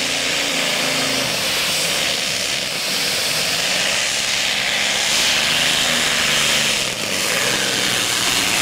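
Modified pulling tractor's engines running at full power while it hauls the weight-transfer sled down the track, a loud steady roar with a brief dip about seven seconds in. The recording is harsh and hissy from a defective microphone.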